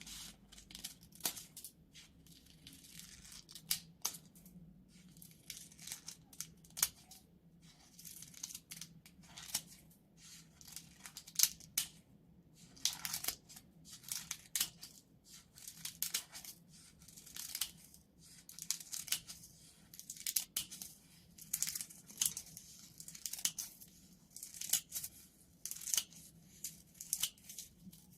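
Scissors sliding through sheets of paper and plastic film, each cut one long smooth stroke with a hiss and a light crinkle, the blades clicking shut now and then. The strokes come one after another, every second or so.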